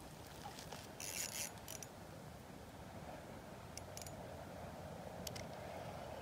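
Faint handling noise from a small ice-fishing rod and reel: a brief scraping rustle about a second in, then a few light clicks.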